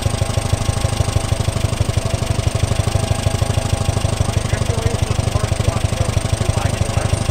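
An old forklift's engine idling steadily, with an even, rapid low pulse.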